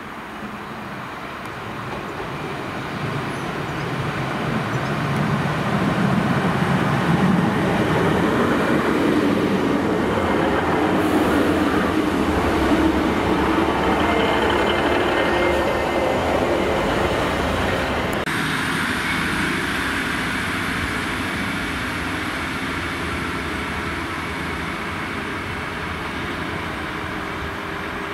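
Class 150/2 Sprinter diesel multiple unit running into the station: its underfloor diesel engines and wheels on the rails grow louder as it approaches and passes close by, then ease off as it slows along the platform.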